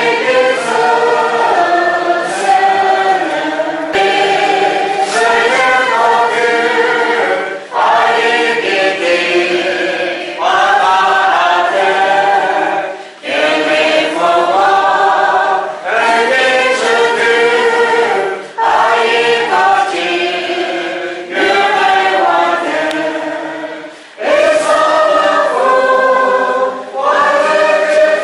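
A church congregation singing a hymn together, phrase by phrase, with a brief pause for breath every few seconds.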